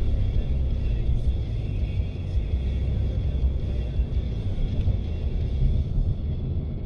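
Steady low rumble of engine and road noise inside the cabin of a moving car, with music from the car radio faintly underneath.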